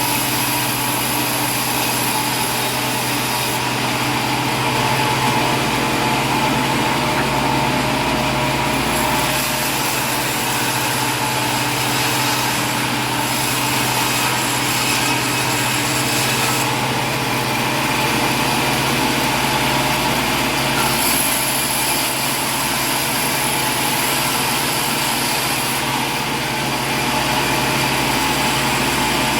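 A steady engine drone: a constant low hum with a hiss over it, holding the same level throughout.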